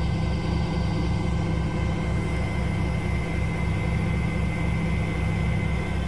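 Daewoo DWD-FT1013 front-loading washing machine running with its drum spinning: a steady motor hum with a low throb about four times a second and a thin high whine that grows a little stronger about two seconds in.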